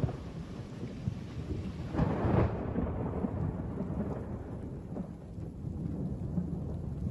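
Deep, steady rushing rumble of a muddy flash-flood torrent. A louder surge comes about two seconds in, after which the sound turns duller.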